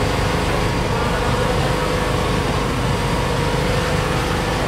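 A steady, low engine hum with street noise, unchanging throughout.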